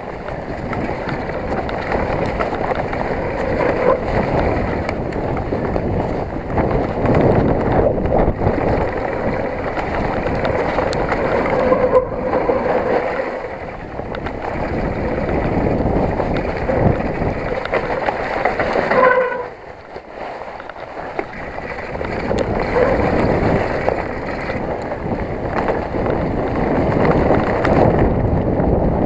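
Specialized Enduro 29 mountain bike descending a rough trail: a continuous rattle and tyre rumble mixed with wind on the microphone, rising and falling in loudness. A short pitched tone about nineteen seconds in, followed by a brief drop in level.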